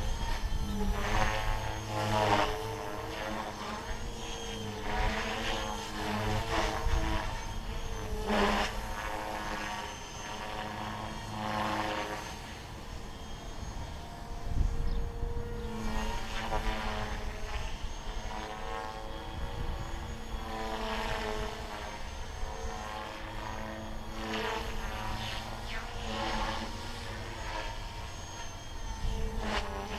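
MSH Mini Protos electric RC helicopter in flight: a steady motor-and-rotor whine that rises and falls in pitch and loudness, over and over, as it manoeuvres overhead.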